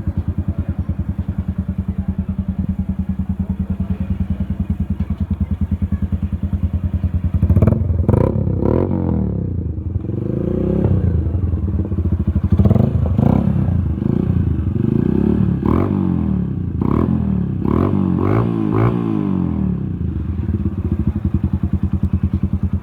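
Motorcycle with an aftermarket exhaust idling steadily, then revved in a string of quick throttle blips from about a third of the way in, settling back to idle near the end.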